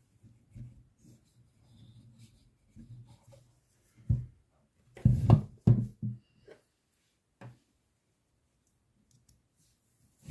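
Small hand tools being worked on a hard work surface: faint intermittent scraping and rubbing, with a sharp knock about four seconds in and a short cluster of louder knocks and clatters about five to six seconds in.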